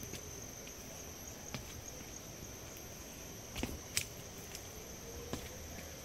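Steady high-pitched insect chorus from the forest, with a few footsteps on stone steps, two sharp ones close together about halfway through.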